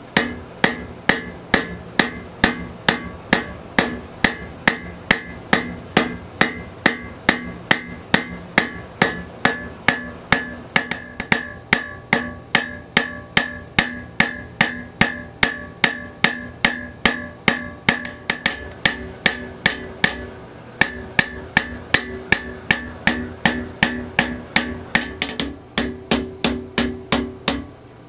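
Blacksmith's hand hammer striking hot forge-welded steel on an anvil, shaping it into the bowl of a lead ladle: a steady run of about two blows a second, each with a ringing tone after it. The hammering pauses briefly about twenty seconds in and again near the end.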